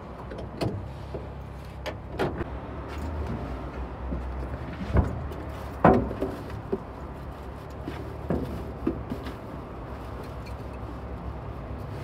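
Scattered knocks, clunks and clicks inside a car cab as someone rummages down under the dashboard, over a low steady hum; the loudest knocks come about five and six seconds in.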